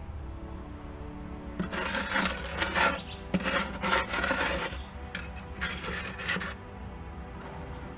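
Scraping and rubbing against the refractory cement lining of a barrel furnace, in several rough, rasping bursts between about one and a half and six and a half seconds in.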